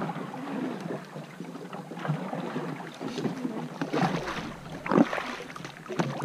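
Water splashing and lapping around a canoe being paddled, with scattered knocks and one sharp knock about five seconds in.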